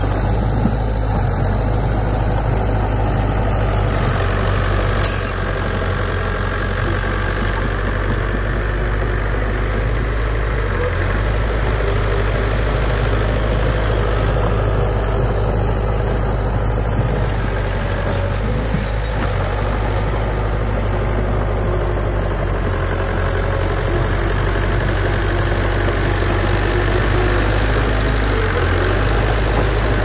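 Diesel engine of a Komatsu D31P crawler bulldozer running steadily.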